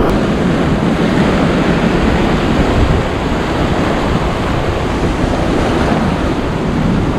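Surf washing and breaking over the rocks: a steady, loud rush of sea water, with wind buffeting the microphone.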